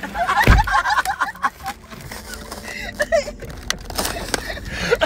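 Two people laughing and chattering without clear words, over knocks and rustles from the phone being handled, with a dull thump about half a second in.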